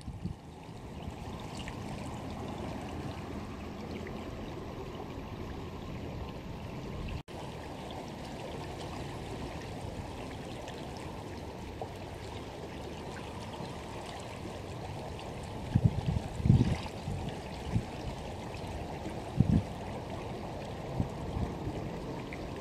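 River water flowing and swirling past steadily, with a few short low thumps in the second half and a brief break about seven seconds in.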